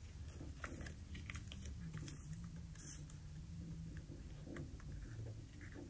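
Sheet of paper being folded by hand: faint crinkles and small clicks as the folds are creased and pressed flat, scattered irregularly over a low steady hum.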